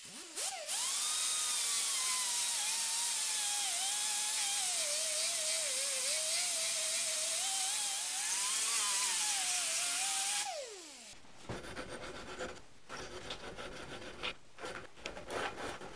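Right-angle air grinder with a sanding disc grinding down a brazed repair on a step pulley: a hissing whine whose pitch sags as it is pressed into the work, then winds down about ten and a half seconds in. After it, scraping strokes of a hand file on the metal.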